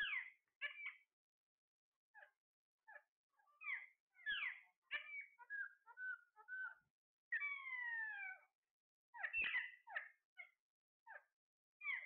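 Alexandrine parakeets calling: short, sharp squawks that slide downward, in irregular clusters. About seven seconds in comes one longer falling call lasting about a second.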